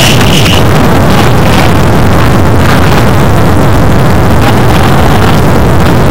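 Loud, steady rumbling noise on the camcorder's sound track, strongest in the low end, with a high steady tone that fades out about half a second in.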